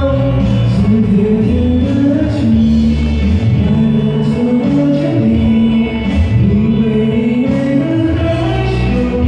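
A man singing a pop ballad live over a backing track, played loud through stadium loudspeakers.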